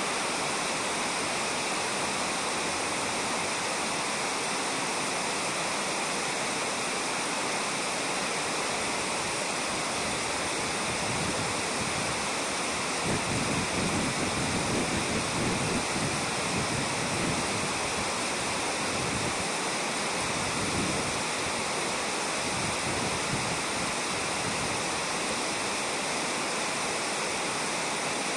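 Shallow gravel-bed river running steadily over stones, a little louder and fuller for a few seconds in the middle.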